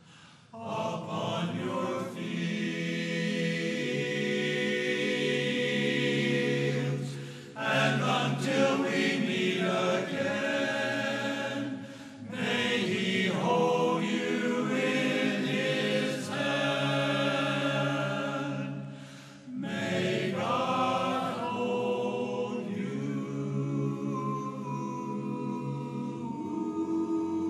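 Men's barbershop chorus singing a cappella in close harmony, in sung phrases with brief breaks between them.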